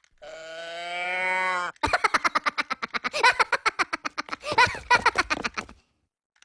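A cow mooing: one long, drawn-out moo, then a stuttering, pulsing bellow of rapid beats that stops abruptly near the end.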